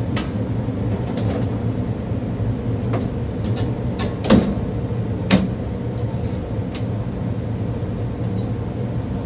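Replacement HVAC blower motor running with a steady hum. Several sharp knocks and clicks sound over it, the two loudest about four and five seconds in.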